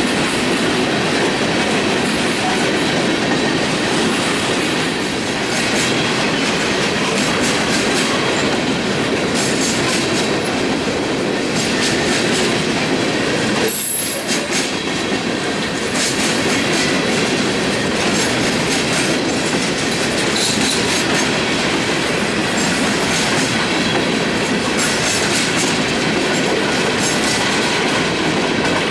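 Empty coal cars of a freight train rolling past close by: a steady clatter of steel wheels on the rail, with a faint thin squeal above it and a brief sharp sound about halfway through.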